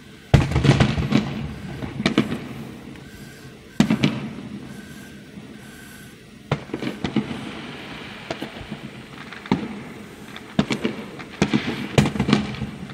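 Aerial firework shells bursting: a loud boom just after the start and another about four seconds in, each with a rumbling tail, then a quicker run of bangs and crackling through the second half.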